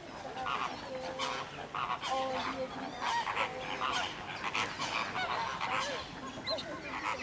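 A chorus of waterfowl calling: geese honking over and over, with ducks calling among them, many short overlapping calls about two a second.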